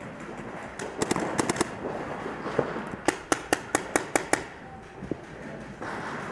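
Paintball markers firing: a few quick shots about a second in, then a rapid string of about eight shots, roughly five a second, starting about three seconds in.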